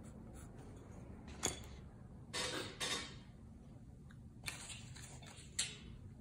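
Drawing tools being handled and set down on a tabletop: a few sharp clicks and clatters, with two short scraping rustles about two and a half seconds in.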